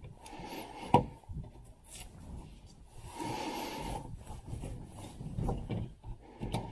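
Hand screwdriver driving a screw through a plastic bracket into a wall panel: scraping and rubbing, with a sharp click about a second in and a longer scrape around three seconds in.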